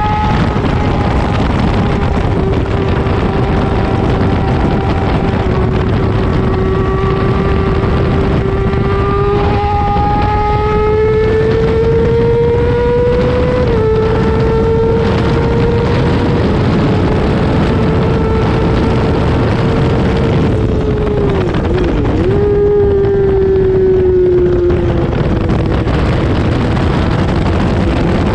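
Road-racing motorcycle engine running hard at high revs, heard from an onboard camera with heavy wind rush over the microphone. Its pitch climbs slowly, drops suddenly about halfway, dips sharply and briefly about three-quarters of the way through, then falls away toward the end.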